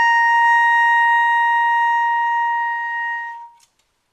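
Alto saxophone playing a single sustained altissimo G, one steady high note held for about three and a half seconds before it stops.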